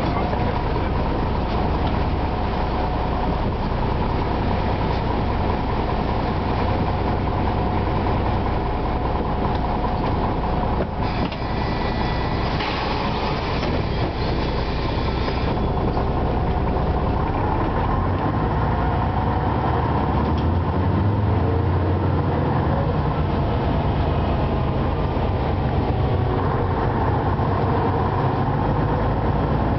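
Interior of an Ikarus 260 city bus: its diesel engine idling while the bus stands at a stop, then working harder from about eighteen seconds in as the bus pulls away and gathers speed. A brief higher-pitched noise comes in about eleven seconds in and stops a few seconds later.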